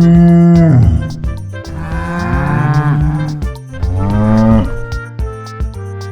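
Cattle mooing: a long low moo that drops away about a second in, then two more moos, over background music.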